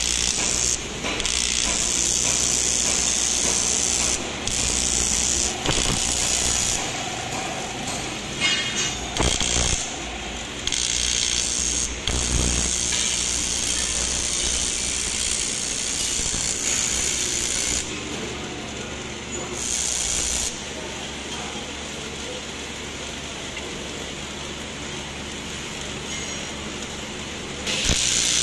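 TIG welding arc on an aluminium motorcycle cylinder block, switching on and off several times in the first half as the welder stops and restarts, then running quieter for a long stretch before getting louder again near the end.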